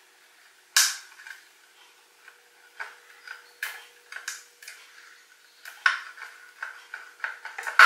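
Ring spanner clinking against a rusty nut and bolt on the metal bowl of a Land Rover Series oil bath air filter as the nut is worked: irregular light metal clicks, the sharpest about a second in, coming faster near the end.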